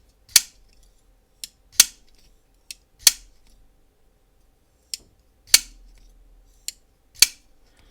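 Holt Haptic flipper knife being flipped open repeatedly, about five times: each flip gives a faint tick followed by a sharp snap with a short ringing tone, a "bink or bonk" rather than a click. The freshly cleaned and re-lubed pivot is being worked back in.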